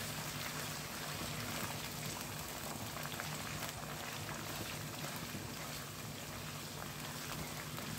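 Peanuts, curry leaves and green chillies frying in hot oil in a steel kadai, stirred with a wooden spatula: a steady sizzle full of fine crackles, over a steady low hum.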